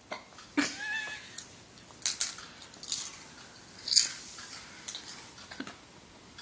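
Infant hiccupping: a series of short, sharp hics about once a second, one with a brief faint squeak of voice about a second in.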